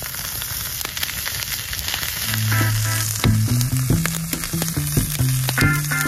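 Fish fillets sizzling in hot oil in a pan over a campfire, with many small pops and spatters. Background music with a low bass line comes in a little over two seconds in.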